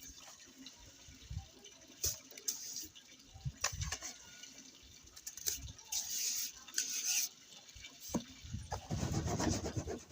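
Wet sand-and-cement mortar being scooped and dropped into a plastic basin: scattered scrapes, knocks and wet slaps, with a longer scraping stretch about six seconds in and heavier low thuds near the end.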